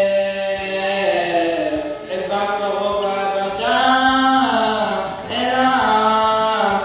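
A single voice chanting unaccompanied in Hebrew, in three long phrases of drawn-out, sliding notes.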